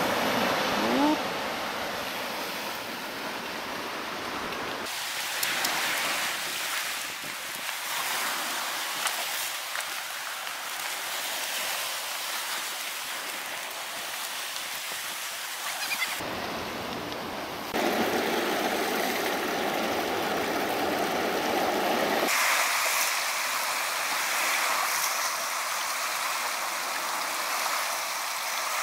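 Rough sea surf breaking on the shore and rocks, with wind noise on the microphone. The noise changes abruptly several times where short clips are joined.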